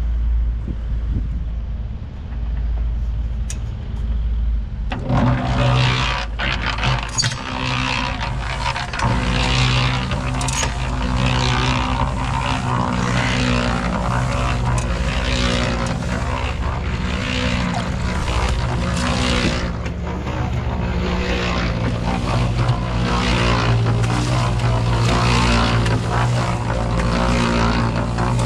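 A motor vehicle engine running with a steady low rumble. About five seconds in, it becomes louder and noisier across the range and stays that way.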